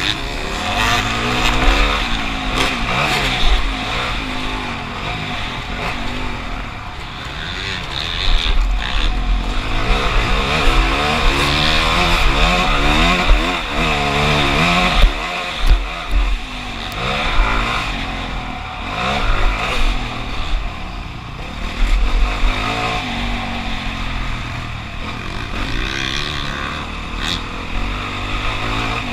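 Motocross bike engine revving hard, its pitch climbing and dropping again and again as the throttle is worked on and off.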